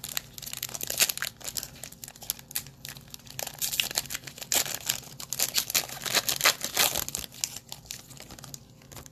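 Trading card pack wrapper being torn open and crinkled by hand, a dense irregular crackling that thins out near the end.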